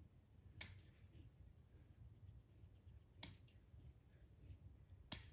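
Three sharp, separate clicks over near silence, from woven wire fence being worked by hand where it is tangled around a trapped deer's leg.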